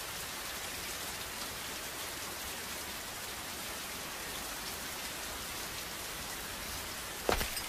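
Steady heavy rain falling, an even hiss. Near the end a single sharp, loud thud cuts through it.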